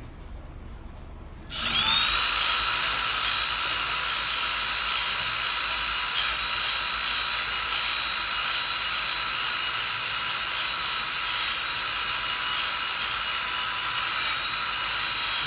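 Makita DBS180 cordless band file (narrow belt sander) switched on about a second and a half in, spinning up quickly and then running steadily with a high-pitched whine.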